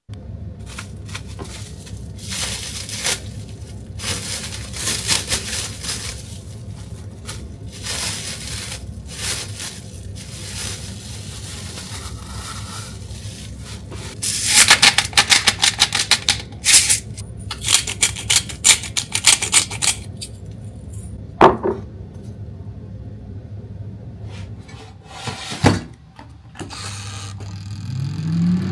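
Kitchen prep sounds: plastic film crinkling and rustling as a wrapped salmon fillet is handled and seasoned, with a few seconds of dense crackling about halfway through over a steady low hum. Near the end a hum rises in pitch as the air fryer starts.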